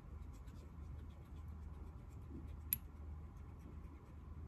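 Faint light scratching of tying thread being wound from a bobbin around a jig hook held in a vise, laying down the thread base. A low steady hum runs underneath, and a single sharp click comes a little past halfway.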